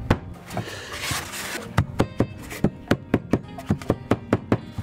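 White plastic mallet tapping rapidly on a new oil seal through a paper towel, driving the seal into a Lewmar windlass gearbox cover. The taps begin about a third of the way in and come several a second, with background music throughout.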